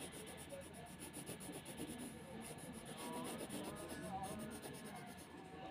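Faint scratching and rubbing of a pencil shading across drawing paper.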